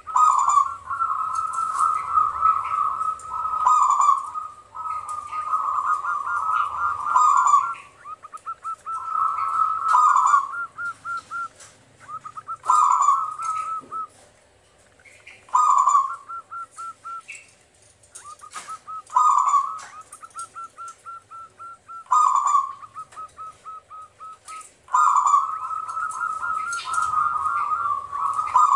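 Zebra dove (perkutut) cooing: repeated phrases of rapid, staccato trilled coos, each ending in a louder, fuller note, every few seconds.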